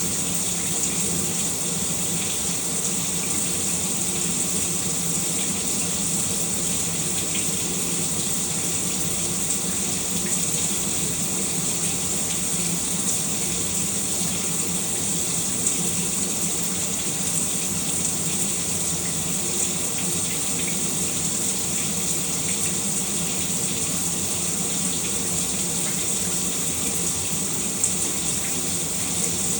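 Shower running steadily, water spraying and splashing down without change.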